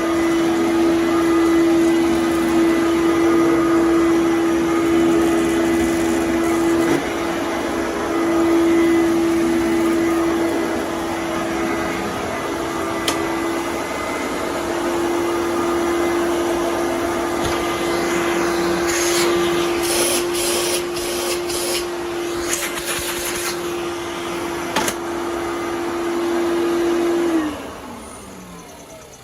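Fantom Domestic 11-amp vacuum cleaner running steadily with a constant motor whine, with a run of clicks and crackles in the middle. Near the end it is switched off and the motor winds down, its pitch falling away.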